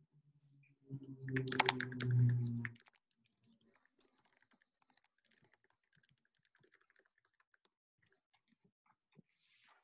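Computer keyboard typing: scattered faint key clicks. About a second in there is a louder stretch of just under two seconds, a steady low hum mixed with dense clicking.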